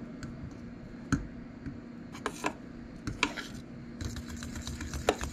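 A metal utensil clicking and scraping against a stainless steel saucepan as flour is stirred into thickening gravy. The taps are irregular and come quicker near the end, over a steady low hum.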